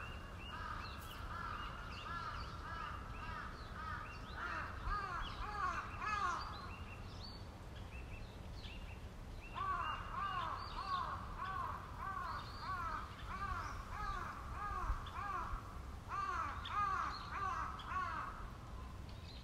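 A chorus of many birds calling together: short rising-and-falling notes repeated over and over and overlapping, with higher chirps above. The calling eases off for a few seconds about a third of the way in, then picks up again.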